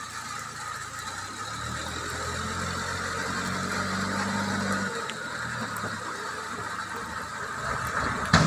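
Backhoe loader's diesel engine running and revving under load as it carries a bucketful of oil palm fruit bunches, with heavy rain falling. A single loud knock comes near the end as the raised bucket reaches the steel bin.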